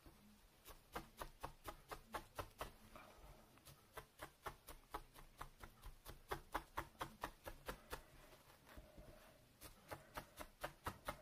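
A felting needle stabbing repeatedly through wool into a felting pad: faint, quick pokes at about four or five a second.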